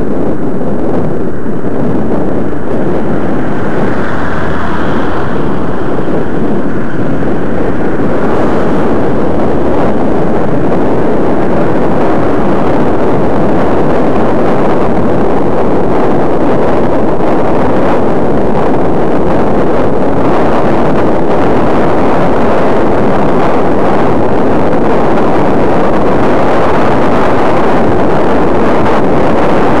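Wind buffeting the microphone of camera glasses worn by a cyclist riding along a street, a loud steady rush, with traffic noise mixed in.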